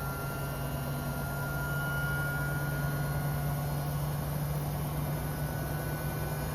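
Samsung Eco Bubble washing machine running a test spin: a steady low hum from the digital inverter motor and drum, with a thin high whine above it that swells slightly in the middle.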